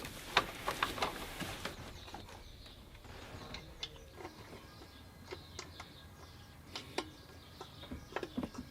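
Hand tools working the bolts of a car's intake manifold: light metallic clicks and clinks, a run of them in the first two seconds, then sparse single clicks.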